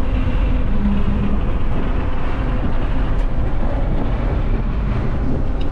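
Steady road noise and low rumble of a Toyota RAV4 driving at speed, heard from inside its cabin.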